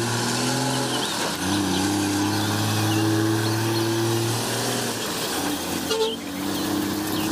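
Diesel semi-truck hauling two curtainside trailers, its engine running with a steady low drone and a steadier higher tone over a rush of road noise.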